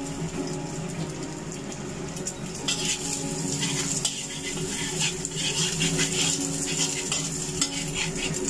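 Egg frying and sizzling in oil in a wok while a metal spatula scrapes and stirs it against the pan, the scrapes coming thicker from about three seconds in. A steady low hum runs underneath.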